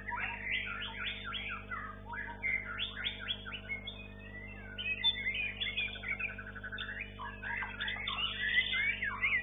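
White-rumped shama (murai batu) singing continuously: a rapid run of varied chirps, whistles and glides, with a fast rattling trill about six seconds in. A faint steady hum lies underneath.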